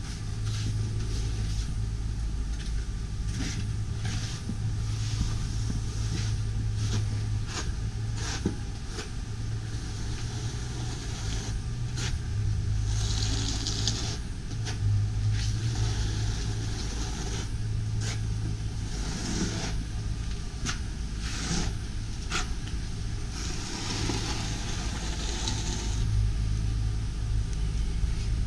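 A steady low rumble under scattered clicks and taps and short stretches of scraping, as a notched trowel spreads tile adhesive on a concrete slab.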